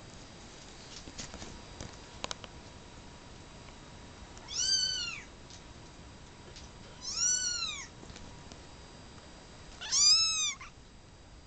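A young kitten meowing three times in high-pitched mews, each call rising and then falling in pitch, the last one the loudest.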